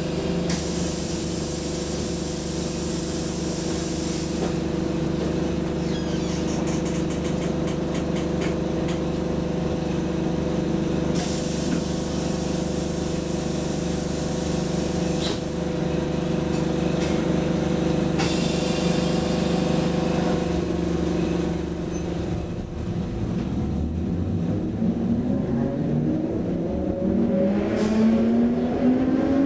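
Lidingöbanan A30B tram standing with a steady electrical hum from its equipment and three spells of hissing air. About three-quarters of the way through it pulls away, its motor whine rising steadily in pitch as it speeds up.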